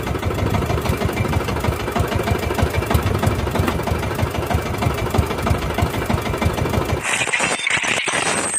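Small outrigger fishing boat's engine running steadily with a rapid knocking beat. About seven seconds in it gives way abruptly to a hissing whoosh.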